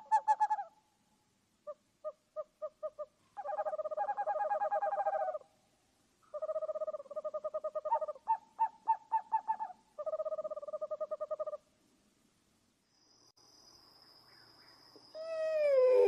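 Owl hooting in fast runs of short hoots, about five a second, in bouts of two to three seconds with pauses between. Near the end a loud, falling screech sweeps down in pitch, over a steady high whine.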